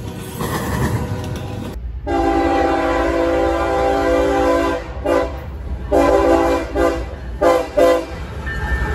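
A freight train rolls past, then a CSX diesel locomotive's multi-chime air horn sounds one long blast followed by several shorter blasts as it approaches.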